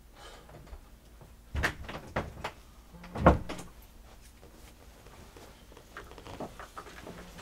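A few light knocks, then a door shutting with a loud thump a little over three seconds in.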